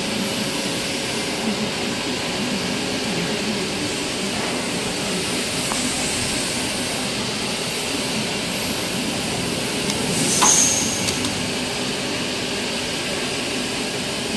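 Steady hum and hiss of factory machinery running, with a brief, louder rush of hiss about ten seconds in.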